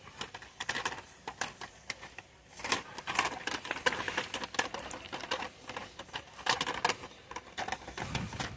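Plastic blister packs on cardboard cards of die-cast toy cars clicking and rustling as a hand flips through them on their peg hooks: a quick, irregular run of clicks.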